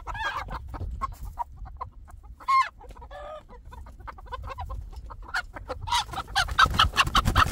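Chickens clucking as they come out of a coop, with a loud run of rapid clucks near the end.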